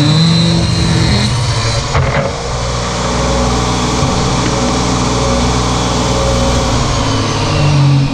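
Portable jobsite table saw running at full speed: its blade finishes a rip cut through a trim board in the first second or so, then spins freely with the motor running steady. A brief knock about two seconds in.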